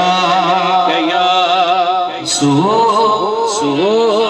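Male voice singing a naat through a microphone and PA. A long note with a wavering pitch is held for about two seconds, then short rising-and-falling phrases follow.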